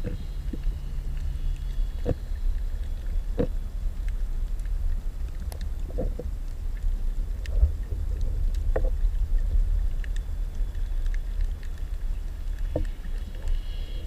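Underwater recording: a steady low rumble of water moving around the camera, with scattered short sharp clicks every second or few.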